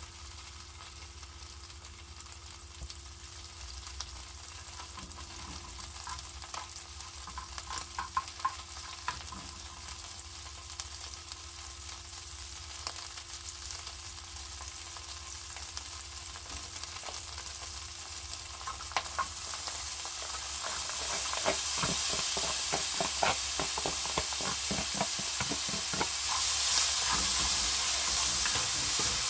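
Food sizzling in a frying pan while a spatula scrapes and taps against the pan in stir-frying. The sizzle grows louder about twenty seconds in, and the scraping and tapping come quick and dense after that.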